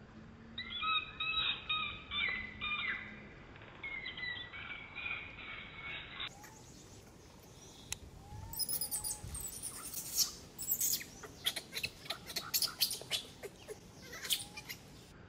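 High-pitched chirping and squeaking animal calls in short repeated notes, turning to a dense run of rapid high chirps in the second half.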